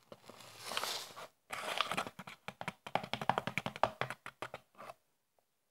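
Paper flour bag being handled and crinkled: a rustle for about a second, then a few seconds of rapid crackling that stops shortly before the end.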